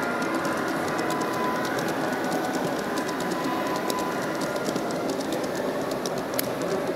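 LGB large-scale (1:22.5) model train coaches rolling past on the track, their wheels ticking over the rail joints in many small irregular clicks over a steady rumble of running noise.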